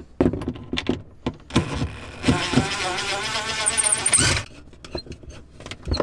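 A cordless drill-driver running for about two seconds on a screw in wooden trim, its motor whine wavering in pitch, and stopping suddenly. Before it come a few clicks and knocks of the tool being handled against the wood.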